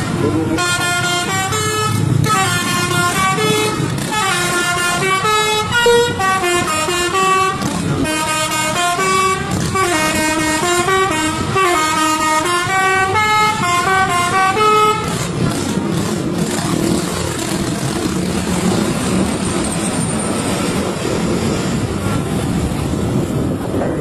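Intercity bus telolet horn, a set of multi-tone air horns, playing a quick tune of stepped notes for about fifteen seconds. After that the horn stops, leaving steady road noise, engine and wind.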